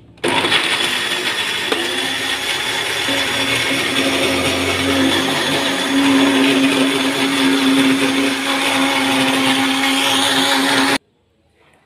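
Electric countertop blender running steadily as it grinds a spice paste of shallots, garlic, ginger and candlenuts in water, with a steady hum growing stronger about halfway through. It switches on at once and cuts off abruptly after about eleven seconds.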